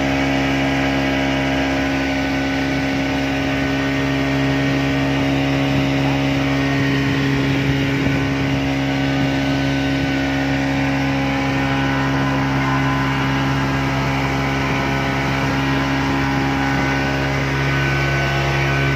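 Speedboat engine running steadily at cruising speed, an unbroken hum, with the rush of water past the hull.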